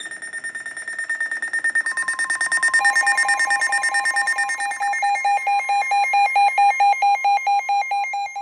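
Emergency alert tones from a weather radio: a rapidly pulsing electronic beeping alarm, joined about two seconds in by a steady tone near 1 kHz, the NOAA Weather Radio warning alarm tone, and a second later by a louder, lower pulsing beep. It is the alert that heralds a flood warning broadcast.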